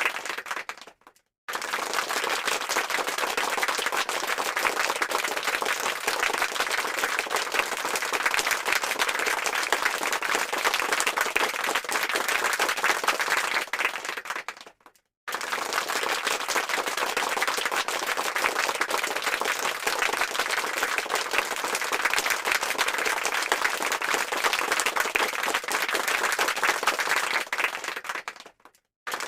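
Applause sound effect: a dense crowd of hands clapping. It fades and stops briefly about a second in, again around halfway, and just before the end, each time starting again at full strength.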